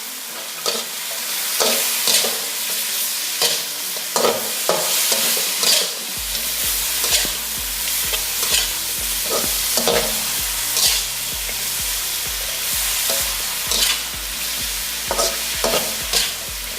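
Crispy pork stir-frying in a pan with garlic, chilies and sauces: a steady sizzle, with the spatula repeatedly scraping and knocking against the pan at an uneven pace.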